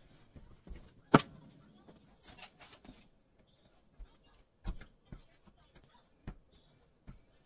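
A sharp, loud knock about a second in, then a few irregular single clunks from a SportsRoyal twist stair stepper as someone steps on it.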